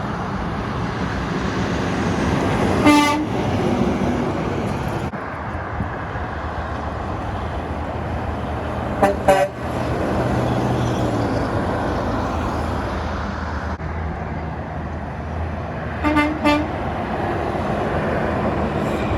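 Steady roar of heavy road traffic passing, with short horn toots: one about three seconds in, two quick toots around the middle, and two more near the end.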